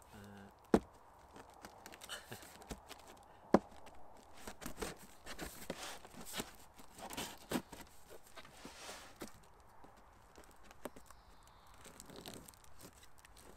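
A metal spoon scraping and pushing through the packing tape along the top seam of a cardboard box, with irregular scratching and tearing of the tape. There are two sharp taps in the first few seconds.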